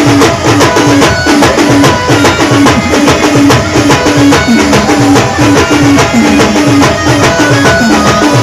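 Band playing Timli dance music: steady, dense drumming under a short melodic phrase that repeats over and over.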